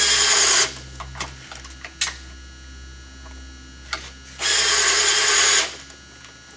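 Battery drill mounted on a saw-chain rivet spinner, run in two short bursts to spin over the rivets of a chain link, the first about half a second long at the start and the second about a second long about four and a half seconds in. Light clicks of the tool and chain between the runs.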